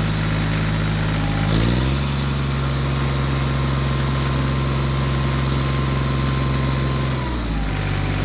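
Engine-like running sound of a miniature tractor, steady and even, shifting to a lower pitch about two seconds in and back up near the end.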